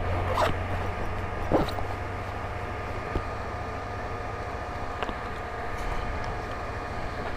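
Kawasaki ZX25R's 250 cc inline-four engine idling steadily while the bike stands still, a continuous low hum with a faint steady whine above it.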